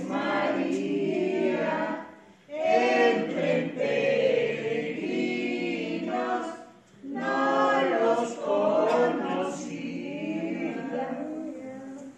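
Background music of a choir singing, in long sung phrases with brief breaks about two seconds in and again near seven seconds, growing quieter toward the end.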